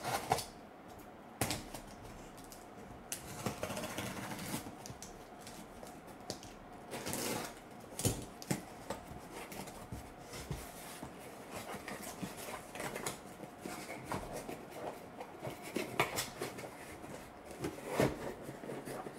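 Cardboard cases of trading-card boxes being opened and handled by hand: wrapping and cardboard rustling and scraping, with scattered sharp knocks as the cases are tipped and the boxes inside are pulled out and set down.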